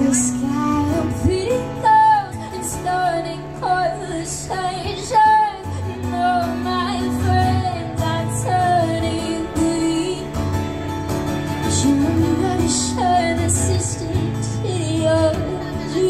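A woman singing a melodic song into a microphone while accompanying herself on acoustic guitar.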